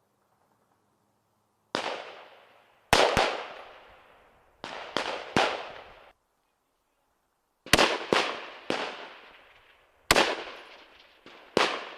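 Rifle gunfire from M4 carbines fired in semi-automatic: about eleven sharp shots, singly and in quick groups of two or three, each followed by a short echoing tail.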